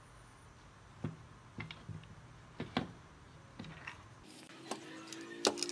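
Light wooden knocks and clacks, about six over three seconds, as the hinged wooden frames of a folding chair are folded and handled on a wooden workbench. A little after four seconds, background music with held notes comes in.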